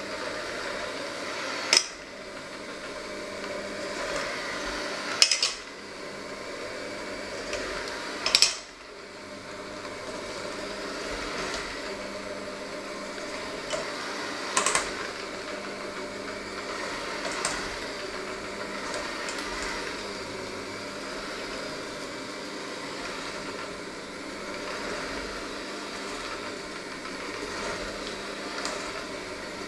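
Electric hand mixer running steadily while working a thick dough in a stainless steel bowl, its beaters clanking sharply against the bowl about two, five and eight seconds in, and once more, more softly, near the middle.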